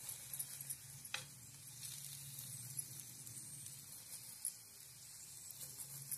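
Onion paratha sizzling quietly in ghee on a tawa, with a steel spoon pressing and rubbing over it; one short sharp scrape about a second in.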